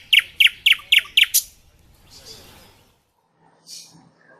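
A songbird singing: a rapid run of short, high, downward-sliding notes, about four a second, that stops about a second and a half in.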